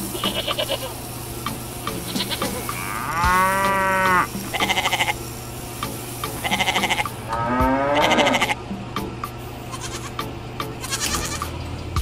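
Bleating livestock calls, with two long wavering bleats about three and seven and a half seconds in and shorter quavering ones between them, over background music and a steady low hum.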